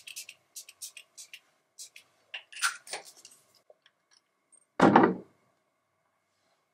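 Face-mist spray bottle pumped in a quick run of short hissing spritzes, followed by scattered softer handling sounds of the bottles. About five seconds in comes a single loud thump, the loudest sound.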